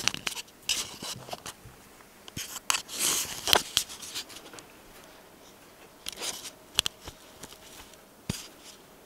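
Handling noises: irregular rustling and scraping with a few sharp clicks, loudest around three seconds in and again near seven seconds.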